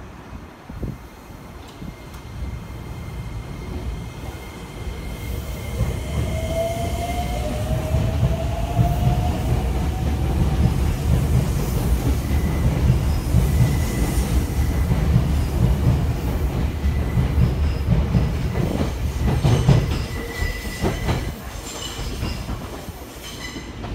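Nagoya Municipal Subway N3000-series train pulling out of a station: its Toyo Denki IGBT VVVF inverter gives a whine that rises in pitch as the train accelerates, over a growing rumble of wheels on rail. Near the end the wheels clack over rail joints and the sound fades as the train leaves.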